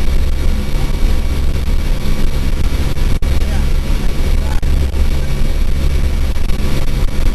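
C-130 Hercules turboprop engines droning steadily, with a loud rush of wind through the open rear ramp, heard from inside the cargo hold.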